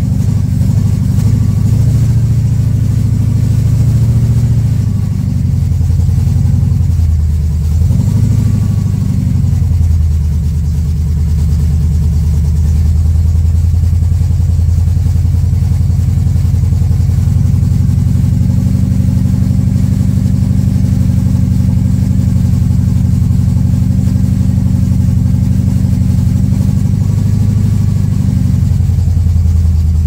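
Carbureted car engine running, its throttle worked by hand at the four-barrel carburetor. The revs rise and fall a few times in the first ten seconds, then hold at a steady fast idle that lifts a little and drops back near the end. It doesn't sound very good, and the owner suspects the spark plug wiring.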